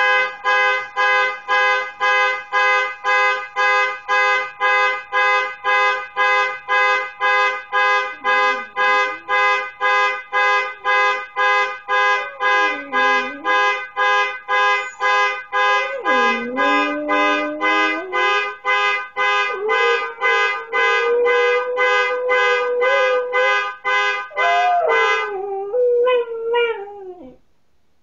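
Car horn sounding its panic alarm in rapid, evenly repeated honks about two a second, with a dog howling along in rising and falling glides. After a few short howls, a long howl starts just past the middle; the honking stops a few seconds before the end and the howl trails off, falling in pitch.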